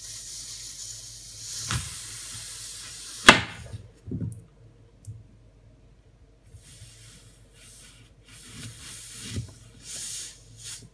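A heated kitchen knife hisses and sizzles as it slices through an apple. About three seconds in there is a sharp knock as the blade hits the worktop. A second hissing cut follows in the latter half.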